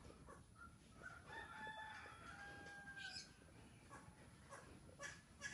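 A rooster crowing once, faint and drawn out for about two seconds. A few sharp clicks follow near the end.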